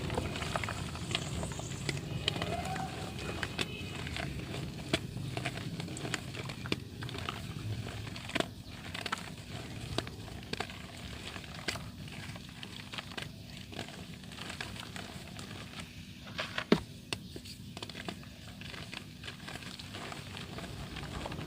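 Soft dirt being crumbled with water: irregular crackling and small clicks, with one sharper crack about three quarters of the way through.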